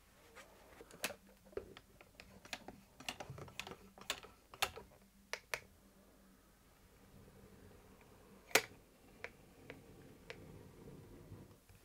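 Manual caulking gun clicking as caulk is squeezed into the joints between MDF battens and the wall: a quick run of sharp clicks, then a few spaced-out clicks, with one loud click about eight and a half seconds in.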